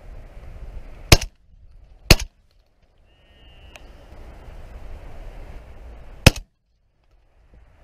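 Three shots from a 12-gauge shotgun. Two come about a second apart, one about a second in and one about two seconds in. The third comes a little over six seconds in.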